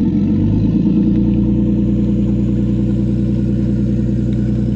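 Motorboat outboard engine running steadily as the boat pulls away across the river, with a shift in engine note about half a second in.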